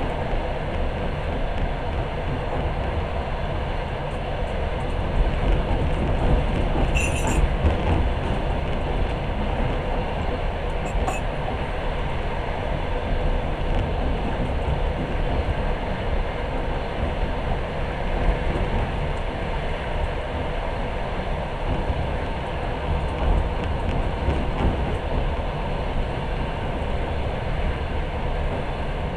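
Passenger train running at speed, heard from inside the carriage: a steady rumble of wheels on the rails. Two brief high-pitched sounds come about seven and eleven seconds in.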